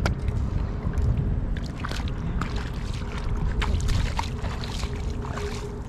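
Water sloshing and splashing in shallow lake water, with many small, sharp splashes and drips scattered through it over a steady low rumble.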